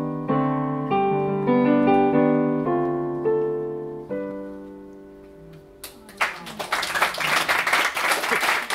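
Electric stage piano playing the closing chords of a song, the final chord held about four seconds in and fading away. A small audience starts applauding about six seconds in.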